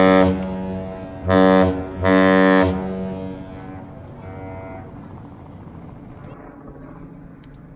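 Deep horn sounding the captain's salute: the end of one long blast, then two short blasts, echoing away afterwards.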